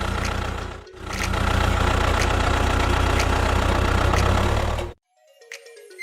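Car engine running with a steady low chugging, dipping briefly about a second in, then cutting off abruptly near the end as the car runs out of gas.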